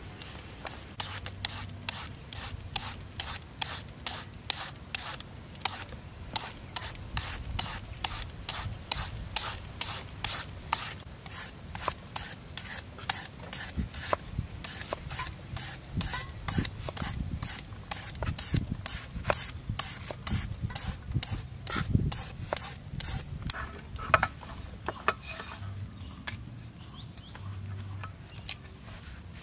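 Green papaya being shredded with a hand shredder: rhythmic scraping strokes, about two to three a second. Later the strokes give way to a knife cutting tomatoes on a wooden chopping board, with sparser, irregular knocks.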